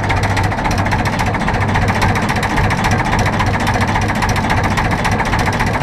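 Ruston Hornsby 4VPHN four-cylinder vintage diesel engine in a Ruston Bucyrus 24RB excavator running steadily with a fast, even knocking beat.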